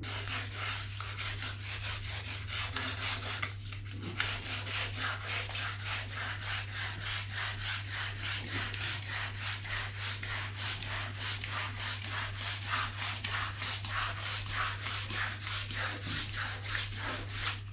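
Painted kitchen cupboard door being sanded by hand with sandpaper: quick, even back-and-forth strokes, about three a second, with a short pause about four seconds in.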